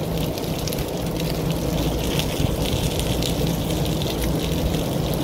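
Chicken thighs and peppers sizzling on a hot Blackstone flat-top griddle, a steady fine crackle, over a low steady hum.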